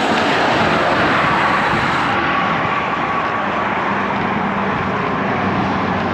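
Motor traffic passing close by on the highway: a steady rush of tyre and engine noise, with faint engine tones rising and fading partway through.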